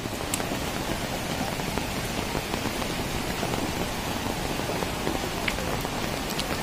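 Swollen, muddy floodwater rushing steadily, mixed with heavy rain falling.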